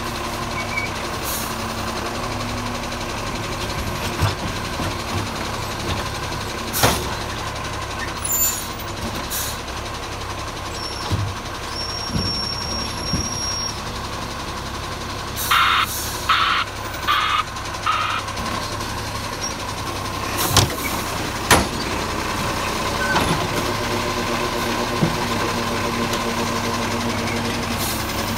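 ACCO side-loader garbage truck running while its automated arm empties wheelie bins: a steady engine hum with a constant high tone, several sharp knocks, and a run of four beeps about halfway through.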